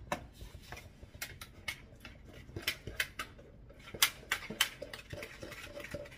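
Wire whisk clicking and tapping irregularly against the sides of a mixing bowl as it stirs a brown sugar and molasses glaze, with a few louder taps about four seconds in.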